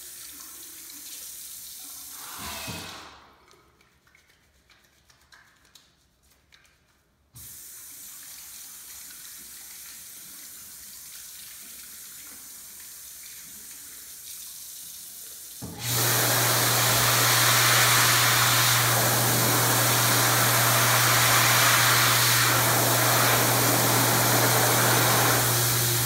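Dyson Airblade Tap's sensor-run tap water running onto hands in the sink for about three seconds, then a quieter gap with a few small clicks. The water runs again for about eight seconds. Then the tap's built-in hand dryer switches on with a much louder, steady rush of air over a low hum for about ten seconds, cutting off near the end.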